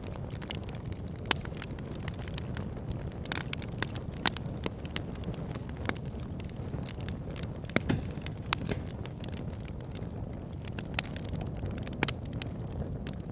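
Wood fire burning in a fireplace: a steady low rush of flames with sharp, irregular crackles and pops from the logs, a few standing out louder, around one, four, eight and twelve seconds in.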